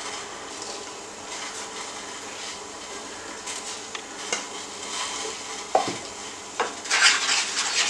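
Strawberry purée boiling in a nonstick frying pan, a steady bubbling sizzle, with a few sharp knocks of a wooden spatula and a louder scrape of stirring near the end.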